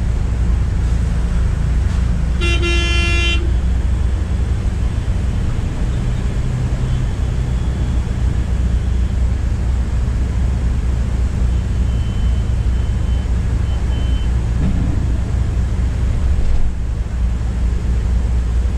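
Volvo B9R multi-axle coach's diesel engine and road noise droning steadily, heard from inside the bus. A vehicle horn sounds once for about a second, about two and a half seconds in.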